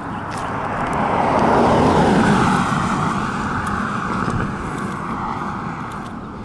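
A car passing by on the road, its tyre and engine noise swelling to a peak about two seconds in and then slowly fading away.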